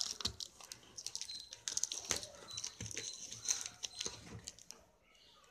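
Cardboard and plastic packaging being torn open by hand: irregular crinkling and rustling with sharp little clicks and rips, dying down near the end.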